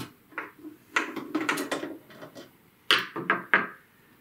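Phillips screwdriver backing screws out of the rear panel of a Realistic CD-2400 CD player's case: an irregular run of small clicks, taps and scrapes.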